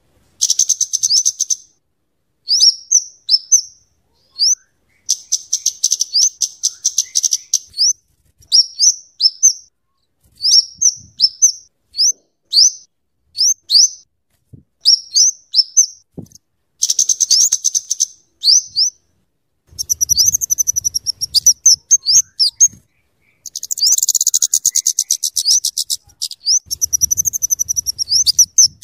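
Scarlet-headed flowerpecker (kemade, cabe jawa) calling at a high pitch, alternating rapid chattering runs with series of short, sharp separate notes, over and over.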